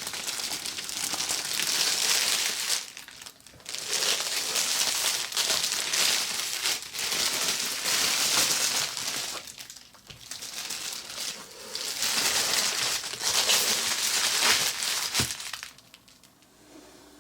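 Packaging crinkling as it is handled and unwrapped, in stretches of a few seconds with brief pauses, stopping near the end.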